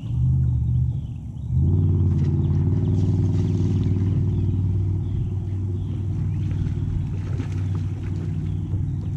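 A boat motor running with a steady low hum, which comes up sharply about a second and a half in and holds on.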